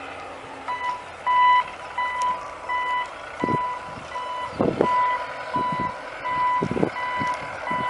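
Backup alarm on heavy construction equipment beeping steadily, about two beeps a second, starting just under a second in, with a few low thumps underneath.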